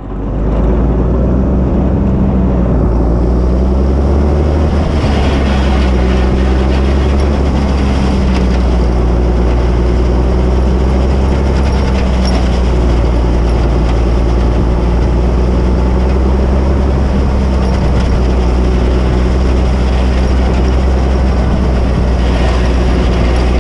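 Fendt 720 Vario tractor's six-cylinder diesel engine running steadily under load as the front plow pushes heavy snow, holding an even pitch throughout.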